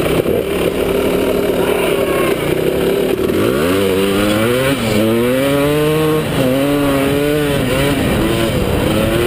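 Dirt bike engine running under load while riding, its pitch climbing and dropping several times from about three and a half seconds in as the rider accelerates and changes gear.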